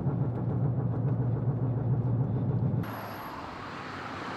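Steady low engine and road drone heard from inside a moving vehicle's cabin. It cuts off suddenly about three seconds in and gives way to a quieter, even outdoor hiss.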